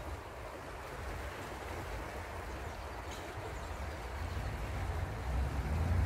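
Fast-flowing river water rushing steadily past stones. A low rumble lies underneath and swells toward the end.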